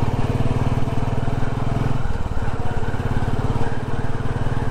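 Royal Enfield Classic's single-cylinder engine running while riding, a steady rapid firing beat heard from the rider's seat. Its low note drops in level about two seconds in.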